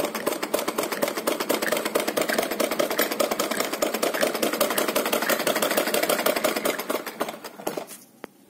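Citizen sewing machine running and stitching: a fast, even clatter of the needle mechanism. It dies away shortly before the end, followed by one single click.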